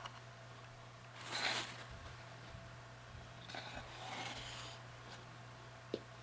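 Paper towel being handled: a short rustling swish about a second in and a softer scraping rustle in the middle, with a small click near the end, over a steady low hum.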